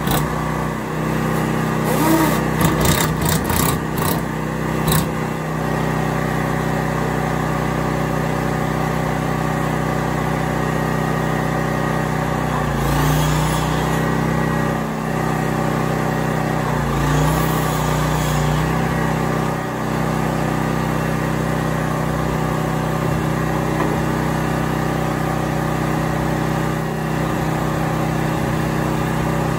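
Small portable engine generator running steadily, with a few sharp clacks in the first five seconds and two brief rises in the running sound later on.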